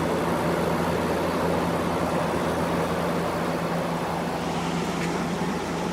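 2014 GE 8,100 BTU window air conditioner running in cooling with its compressor just started: a steady fan noise over a low, even hum, the compressor itself really quiet.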